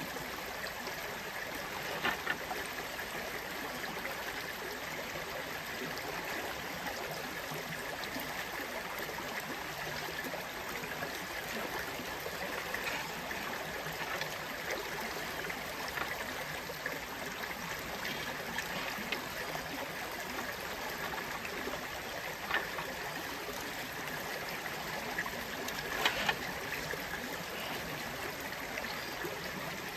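Shallow creek water running steadily over rocks, with a few short clicks, the loudest about two seconds in and near the end.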